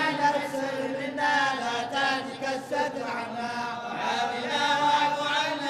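A group of men chanting a Sufi devotional qasida together, unaccompanied, drawing out long held notes of the melody.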